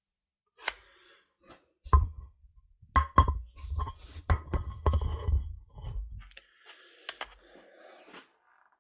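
Handling noise: a quick run of sharp knocks and clinks with low thuds under them, then softer rustling and scattered clicks.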